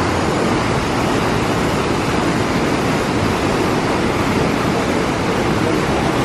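Steady, loud rush of a fast river pouring over boulders in rapids and a small waterfall.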